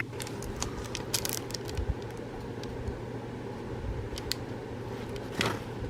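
Light handling sounds: scattered soft clicks and small rustles as a diamond painting canvas and its plastic film are handled, over a steady low hum.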